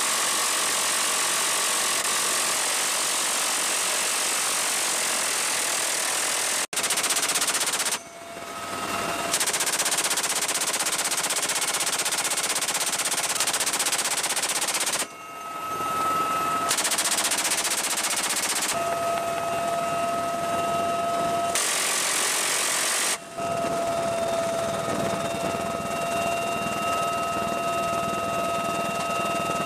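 Door-mounted machine guns on a Bell UH-1Y Venom helicopter (GAU-21 .50 caliber and M134 minigun) firing long, fast bursts that blur into a dense buzz. The fire comes in several stretches broken by abrupt changes, and the helicopter's steady whine runs underneath.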